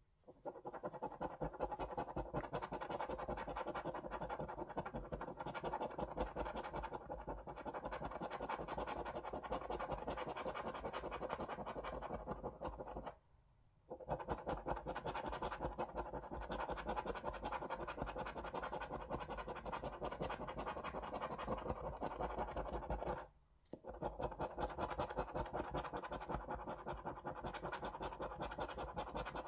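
A coin scratching the scratch-off panel of a paper lottery scratchcard in fast, continuous back-and-forth strokes. The scratching stops briefly twice, about 13 and 23 seconds in.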